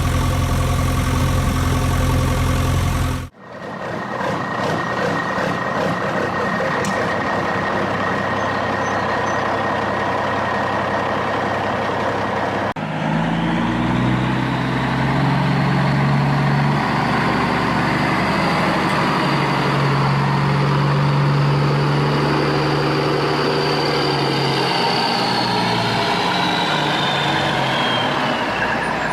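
Heavy truck engine running. The sound cuts abruptly to a different engine sound about three seconds in and again about halfway through, and a high whine falls away near the end.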